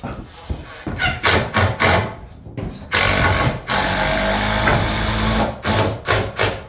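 Power tool running in short bursts, with one steady run of a couple of seconds in the middle.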